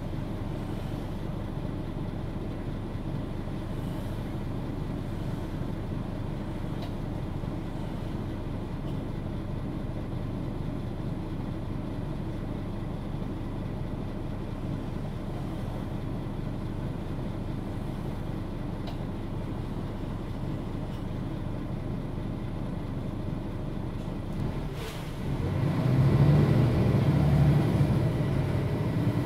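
Diesel engine of a Mercedes-Benz O530 Citaro G articulated bus heard from inside the bus, running at a steady idle. Near the end a short click, then the engine revs up louder as the bus pulls away.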